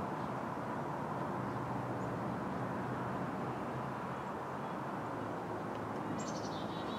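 Steady hum of distant road traffic with no vehicle passing close. About six seconds in, a bird gives a short rapid series of high chirps.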